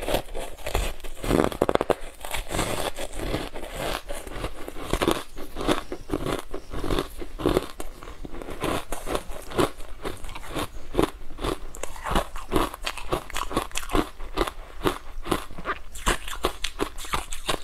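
Ice blocks coated in matcha powder being bitten and chewed, heard close up as a dense run of quick, sharp crunches.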